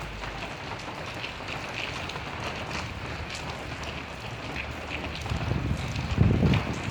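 Steady hiss of rain with scattered drop ticks, and a low rumble that swells up about five seconds in and peaks near the end.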